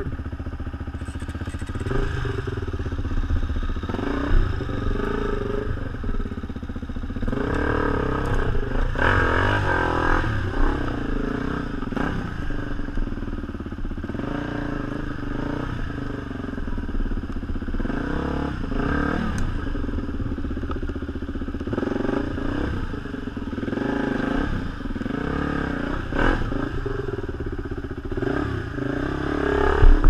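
Enduro motorcycle engine running, its revs rising and falling again and again.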